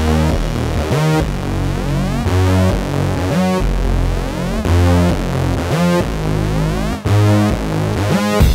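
Electronic background music: a synthesizer over a heavy bass, with a rising sweep repeating about once a second.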